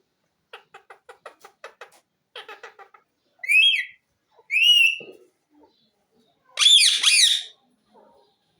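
Green pet parrot vocalising: a run of soft, rapid clicking chatter, then two short whistled calls that rise and fall, and a longer, louder, harsher squawk near the end.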